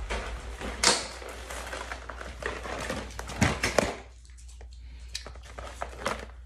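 Groceries being handled close up: a cardboard box of frozen sorbet and its packaging rustling and bumping, with scattered clicks and knocks. There is a sharp click about a second in and a few louder knocks around three and a half seconds in.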